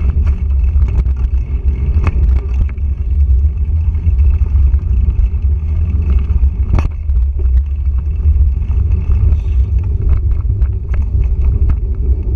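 Mountain bike riding fast over dirt singletrack, heard through a handlebar-mounted GoPro Hero3+: a constant low rumble of wind and trail vibration, with scattered rattles and clicks from the bike over bumps. A sharper clank comes about seven seconds in.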